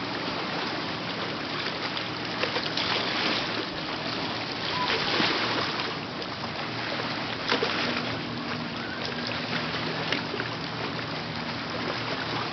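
A jet ski's engine running steadily to pump water up the hose to a flyboard, under a constant rushing hiss of the water jets spraying onto the lake.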